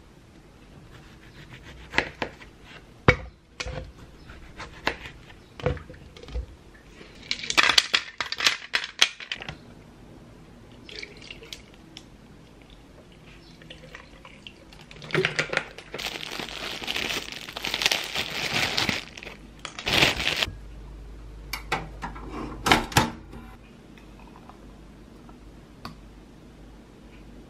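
Kitchen prep of a tomato drink: a few sharp knife clicks and taps on a cutting board, then clinks of a blender jar and liquid being handled, with a short rushing stretch about eight seconds in and a longer one of about five seconds from around fifteen seconds that cuts off suddenly. A few clatters follow, then it goes quiet.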